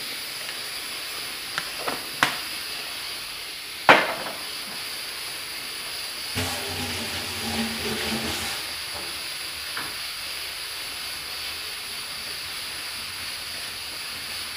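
Chicken pieces frying in an aluminium pot, giving a steady sizzle. A few sharp clicks and knocks of handling come in the first four seconds, the loudest about four seconds in.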